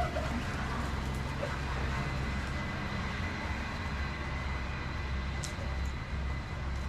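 Farm diesel engine of harvest machinery running steadily: a low, even drone with a faint steady high whine over it.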